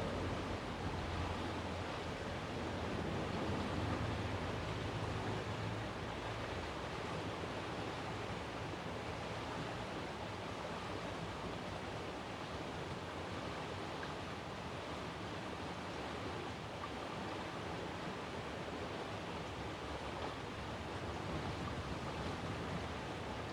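Steady outdoor background noise with no siren tone. A low rumble in the first few seconds fades away.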